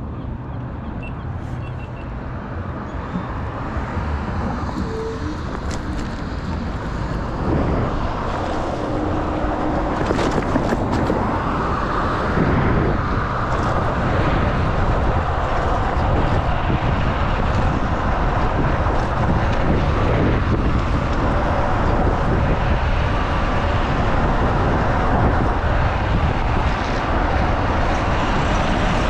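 Wind buffeting the microphone with road and tyre noise while an electric scooter is ridden, growing louder over the first ten seconds or so as it picks up speed, then holding steady.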